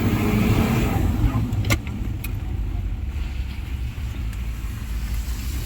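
Isuzu Trooper with its 4JX1 four-cylinder turbodiesel, heard from inside the cabin while driving: a steady low engine and road rumble. A single sharp click comes about a second and a half in, and the rumble eases a little after it.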